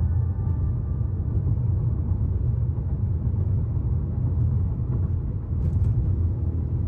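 Steady low rumble, with a few faint clicks near the end.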